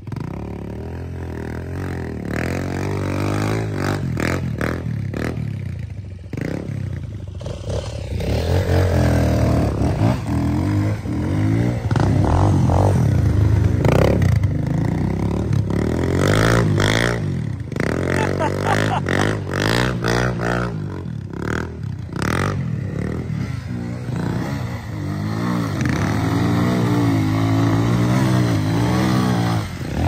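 Dirt bike engines revving, rising and falling in pitch again and again as they are ridden through deep mud, with scattered sharp knocks.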